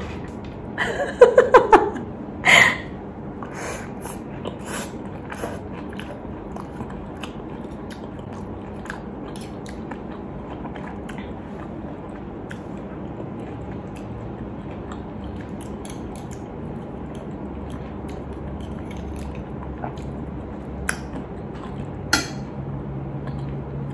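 Close-up eating sounds: a few loud mouth sounds in the first few seconds as a grilled oyster topped with crushed peanuts is taken off the shell into the mouth. Then quiet chewing with scattered soft mouth clicks.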